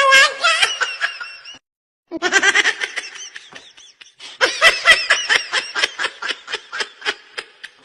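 Baby laughing in high-pitched, breathy bursts. The laughter cuts off briefly about one and a half seconds in, then starts again as rapid, pulsing giggles.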